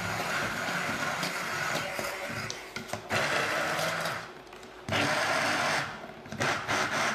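Hand-held stick blender with a metal shaft puréeing cooked cauliflower into mash, its motor running in three spurts, each cut off after one to three seconds, with a few light knocks near the end.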